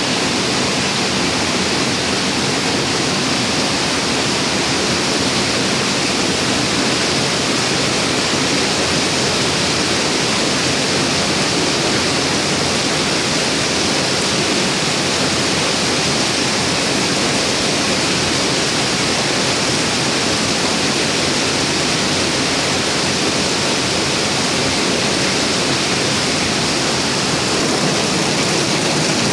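Heavy rain falling in a steady, unbroken downpour, a loud even hiss.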